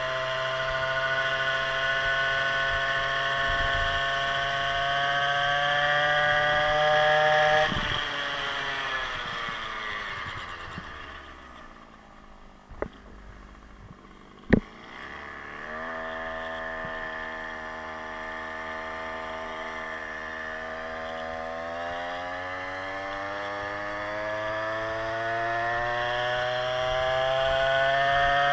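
Two-stroke 52cc big-bore scooter engine revving up under throttle, then falling back to a low idle about eight seconds in. Two sharp clicks sound while it idles, and after about sixteen seconds it revs up again, climbing steadily.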